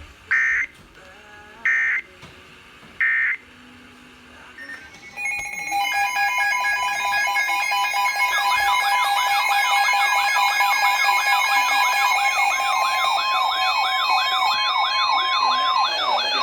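Emergency Alert System tones: three short data bursts of the end-of-message code a little over a second apart. About five seconds in, a loud alert signal begins, several steady tones stacked with fast-warbling, siren-like sweeps.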